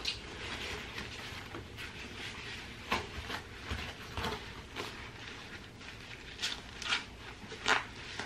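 Children's backpacks being handled and strapped on: scattered short rustles and clicks of straps and fabric, coming irregularly and more often in the second half.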